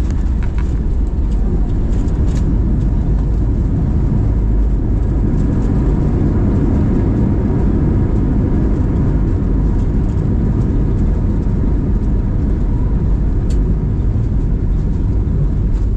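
Steady low rumble inside the cabin of an Airbus A320 rolling along the runway and turning off onto a taxiway after landing: the jet engines running and the landing-gear wheels rolling over the pavement. A faint steady whine sits above the rumble.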